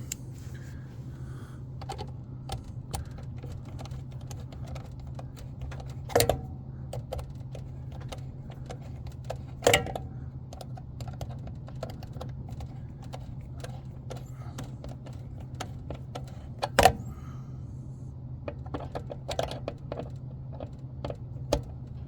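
Small clicks and rattles of tools and parts being handled, with three sharper knocks, the last the loudest, over a steady low hum.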